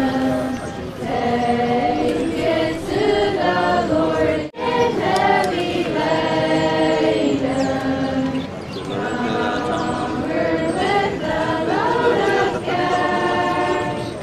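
A group of Amish singers singing together unaccompanied, several voices holding long notes in harmony. The sound drops out for a moment about four and a half seconds in.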